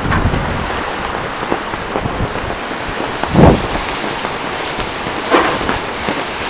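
Fast river water rushing past the hull of a non-powered cable ferry, a steady wash of water noise with wind on the microphone. Two short, louder bumps stand out, about three and a half seconds in and again near five and a half seconds.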